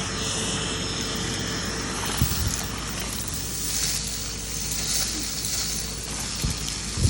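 Numatic Henry vacuum cleaner running, a steady motor drone with a constant tone over the rush of air through the hose. A couple of knocks about two seconds in and near the end.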